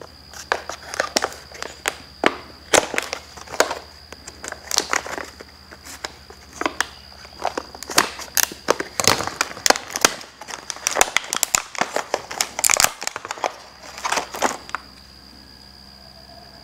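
Stiff clear plastic blister packaging being crinkled and torn open by hand: a long run of sharp crackles and snaps that stops about 15 seconds in.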